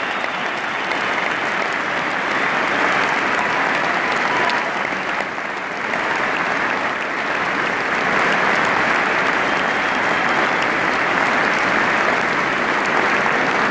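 Crowd applauding without a break, easing slightly about five seconds in and growing louder from about eight seconds.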